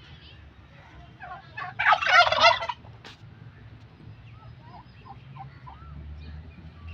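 A large fowl's loud, rapid, rattling call lasting under a second, about two seconds in, followed by a few faint short chirps.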